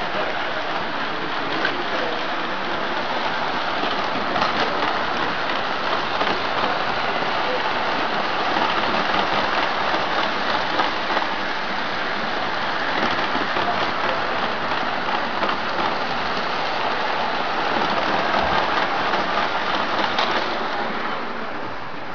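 Model freight train running on a layout's track: a steady rattling clatter of wheels on rails that swells a little in the middle and eases off near the end.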